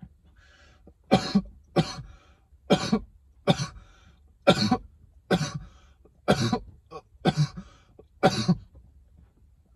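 A man coughing into his fist, about nine coughs roughly one a second, after inhaling from a cannabis vape cartridge.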